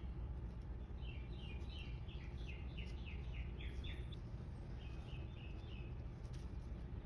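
A songbird singing runs of short, quickly repeated falling notes: one long run about a second in and a shorter run about five seconds in. Under it runs a steady low background rumble.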